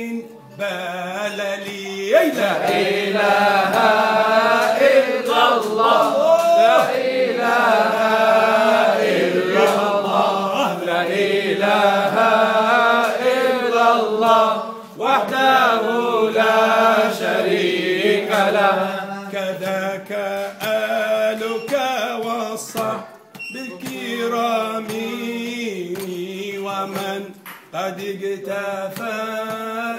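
Male voices chanting an Arabic devotional praise song for the Mawlid, a melody that rises and falls with long held notes. The singing briefly drops away about 15 and 23 seconds in.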